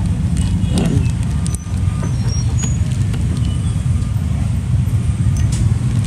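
A steady, loud low rumble, with a few faint light clicks over it.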